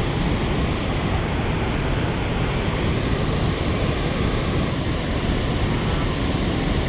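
Loud, steady rush of water released through a dam, an even roar with no breaks.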